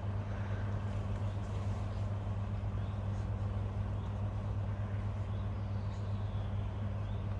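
Steady low mechanical hum, like an engine or motor running, unchanged throughout, with faint short high chirps about once a second.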